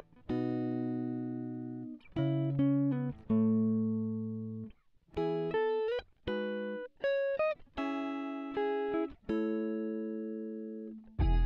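Background music: a clean guitar playing short phrases of plucked notes and chords, each dying away, with fuller backing and bass coming in near the end.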